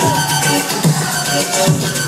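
Dubstep track played loud over a club sound system: a steady beat and heavy bass with synth sounds that repeatedly slide down in pitch.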